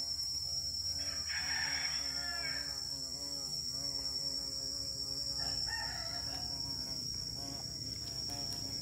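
A rooster crowing, drawn out and wavering, over the steady high drone of insects.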